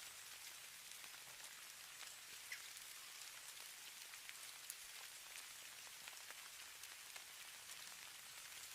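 Faint, steady patter of falling snow: a soft high hiss dotted with many tiny irregular ticks of snow striking a surface.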